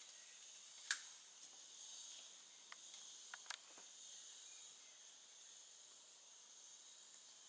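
A faint, steady, high-pitched insect chorus, with a few sharp clicks or snaps. The loudest click comes about a second in, and a small cluster follows a couple of seconds later.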